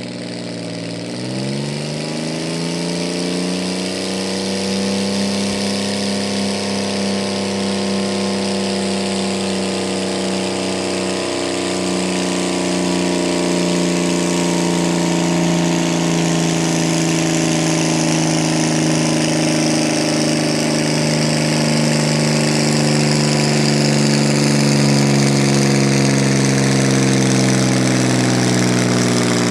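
Green John Deere farm tractor's diesel engine revving up about a second in, then held at high, nearly steady revs under load while it pulls the weight sled.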